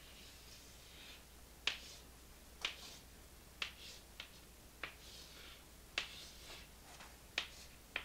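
Faint chalk writing on a chalkboard: about eight sharp, irregular ticks as the chalk strikes the board, with soft scratchy strokes between them.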